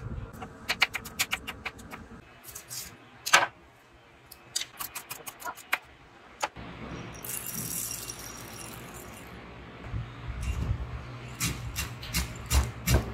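A knife chopping fresh spring onion and coriander on a wooden cutting board, a run of quick sharp taps. Near the end, a steel pestle pounds roasted chana dal in a steel mortar with metallic clinks.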